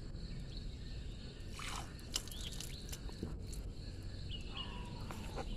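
Outdoor ambience: a steady low rumble with a few sharp clicks about two seconds in and some short bird chirps near the end.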